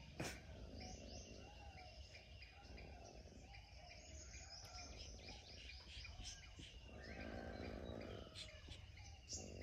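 Faint birds chirping, many short high calls overlapping, with a single sharp click just after the start.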